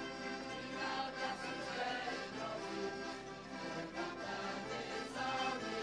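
Choral music: several voices singing together in a sustained chorus.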